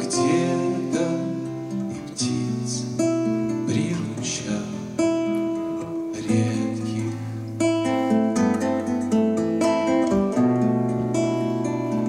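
Two acoustic guitars playing together, picked notes and strummed chords of a song accompaniment.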